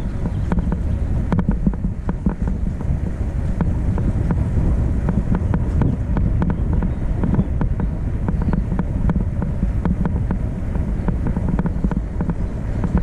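A vehicle driving: a steady low rumble of engine and road noise with frequent small rattles and clicks, and wind buffeting the microphone.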